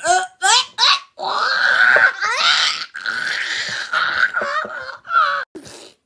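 Cartoon character vocal sound effects: a quick run of squeaky, pitch-bending chirps, then a long noisy warbling cry with sweeping pitch, and more short chirps near the end.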